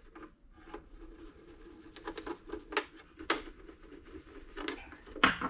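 A metal pick scratching and tapping on hard plastic speaker kick panels as it marks hole positions through one panel onto the other, with scattered sharp clicks and knocks as the panels are handled.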